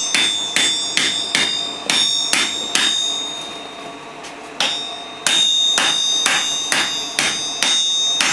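Hand hammer striking red-hot steel on an anvil, about two blows a second, the anvil ringing between blows. The blows pause for about a second and a half midway, then resume.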